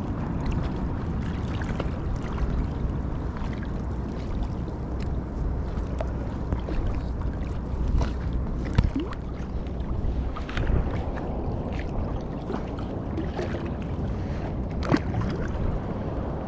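Choppy sea water sloshing and lapping around a rubber inner-tube float, with wind on the microphone. A few sharp knocks stand out, the loudest a little under nine seconds in.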